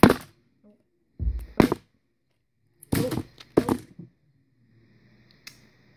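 A few knocks and thumps with quiet gaps between them: a sharp one at the start, a low thump a little over a second in, a pair near the middle, and a light click near the end.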